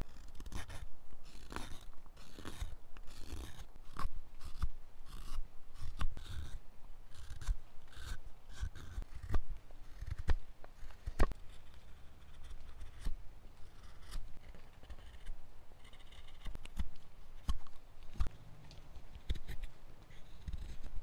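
Carving knife shaving a wooden scoop by hand: a run of short, irregular slicing strokes, with an occasional sharper click as a chip breaks away.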